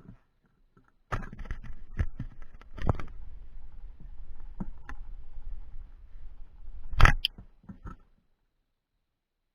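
Handling noise picked up by a camera mounted on an airsoft electric rifle: irregular knocks and scraping as the rifle is moved, with one loud sharp knock about seven seconds in.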